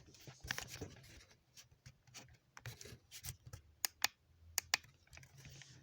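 Faint rustling and scattered small clicks of something being handled by hand, with a few sharper clicks around the middle.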